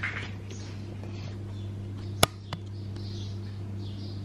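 Steady low hum with a sharp click a little over two seconds in and a fainter click just after it.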